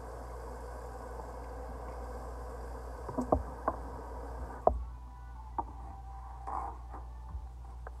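Bathroom tap running into the sink, then shut off a little past halfway with a sharp knock, the loudest sound here. A few knocks and clicks of things being handled at the sink come before and after it.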